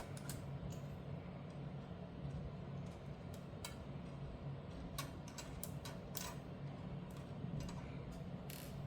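Scattered small metal clicks and taps as screws are worked out with a screwdriver and handled on a graphics card's PCB and backplate. Under them is a low steady hum.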